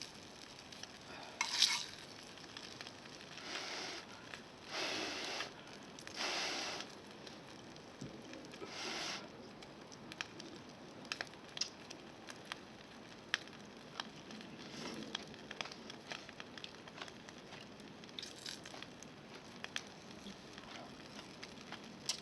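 Food sizzling in a pan over a wood campfire. There are several short swells of hiss in the first ten seconds, then a quieter steady sizzle with many small crackles and ticks from the fire.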